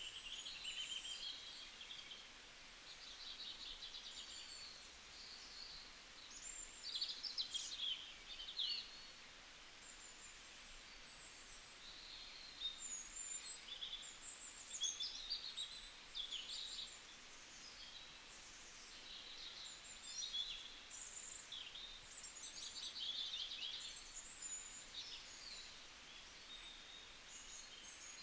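Several small birds chirping and trilling continuously, quick high-pitched phrases overlapping one another over a faint background hiss.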